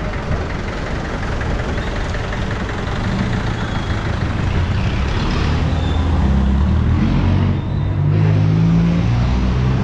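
City street traffic noise with a motor vehicle's engine running close by, growing louder over the second half.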